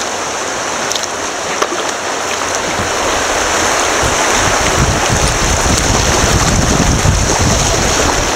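Rushing water of a shallow creek riffle, growing louder as the kayak runs into the white water, with a low, irregular rumble joining in from about halfway through.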